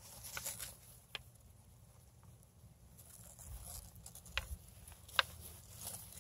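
Faint handling sounds of a red-footed tortoise walking through grass under a hand on its shell: light rustling with four sharp clicks, the last one the loudest, and a few soft low thumps in the middle.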